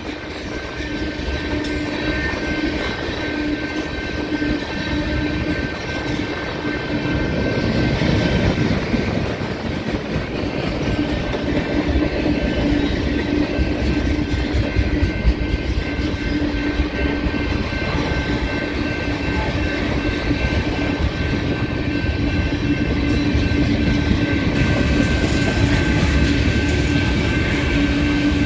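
Freight train cars (open-top gondolas and centerbeam lumber flatcars) rolling steadily past: continuous rumble and clatter of steel wheels on rail. A steady high tone runs through it.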